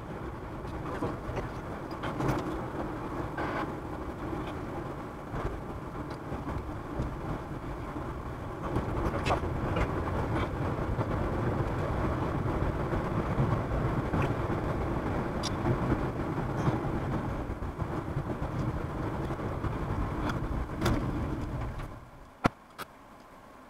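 Car road and engine noise inside the cabin, a steady rumbling hiss with occasional light clicks and knocks. Near the end the noise drops off sharply and a single sharp click follows.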